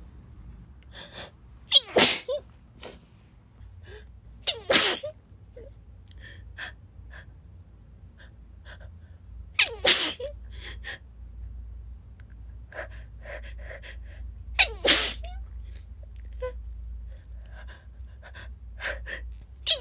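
A woman in a sneezing fit: four loud sneezes a few seconds apart, each set off by a quick gasping intake of breath, with smaller sniffs and breaths between them.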